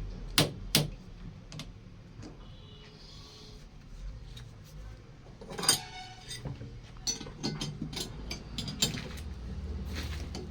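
Irregular clicks, knocks and clinks of small hard objects being handled, over a low steady hum: two sharp clicks near the start, a cluster about halfway through and a quicker run of them a little later.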